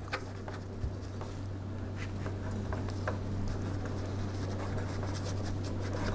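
Soft, scratchy strokes of a small brush working leather colour into the leather under the edges of a leather armour piece, with a few faint ticks, over a steady low hum.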